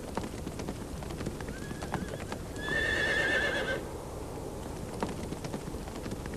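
Horse hooves clopping in an irregular run of strikes, with a horse whinnying for about a second near the middle, a wavering high cry.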